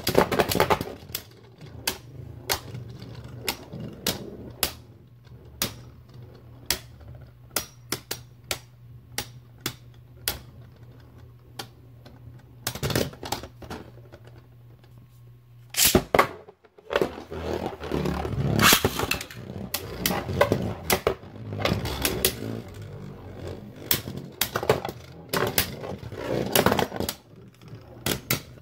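Dusk Balkesh and Right Artemis Beyblade Burst tops spinning and clashing in a plastic stadium: a run of sharp clicks and clacks over a low whir. After a brief gap just past halfway comes denser clattering as the tops collide.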